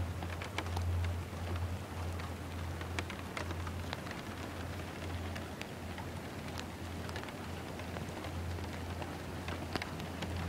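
A low, steady droning hum that swells and fades in level every second or so, with scattered small ticks over it. The recorder heard it as a low vibrational sound coming from the sky.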